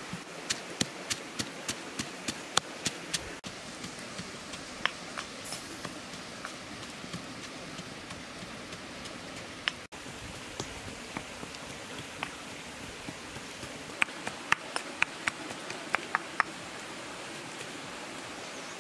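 Open wood fire crackling: a quick run of sharp pops in the first three seconds and another cluster about fourteen to sixteen seconds in, over a steady hiss.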